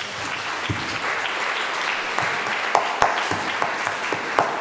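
Audience applauding: a dense patter of many hands clapping, with a few sharper single claps standing out.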